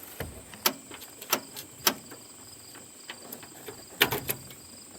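A few sharp clicks, three evenly spaced then a quick cluster near the end, as the ignition key of a 1988 John Deere 322 is worked with the starter not cranking: no voltage is reaching the starter solenoid. Crickets chirp steadily in the background.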